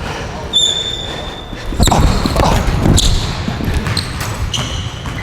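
Basketball being dribbled on a hardwood gym court, a few hard bounces about a second apart, with basketball sneakers squeaking on the floor: one sharp squeak about half a second in and another shorter one near the end.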